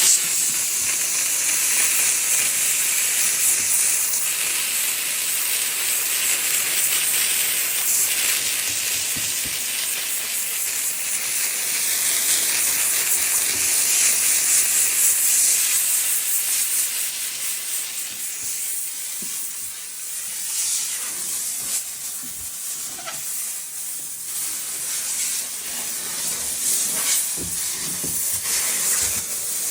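Steady hissing spray from cleaning equipment at work on a refrigerator, easing off for a few seconds past the middle, with scattered knocks and clicks in the second half.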